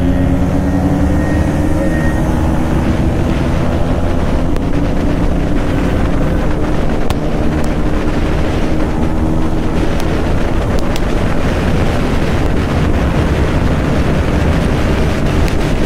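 Motorcycle engine accelerating, its pitch rising over the first couple of seconds, then running steadily at speed under heavy wind noise on the rider's microphone.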